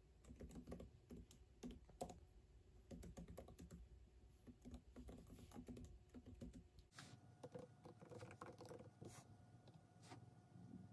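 Faint typing on a MacBook Pro laptop keyboard: a quick, irregular run of key clicks. A low background rumble drops away about seven seconds in.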